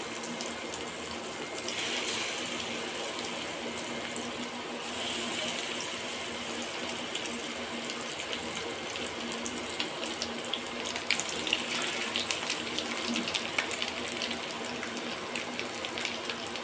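Masala-coated tuna slices sizzling in hot oil in a frying pan: a steady sizzle with frequent crackles and pops, which come more often in the second half.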